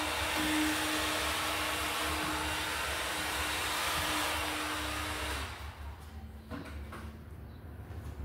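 Heat gun blowing a steady hot-air hiss with a motor hum, used to heat an old rear suspension bushing so it can be removed. It cuts off about five seconds in, followed by a few light clicks.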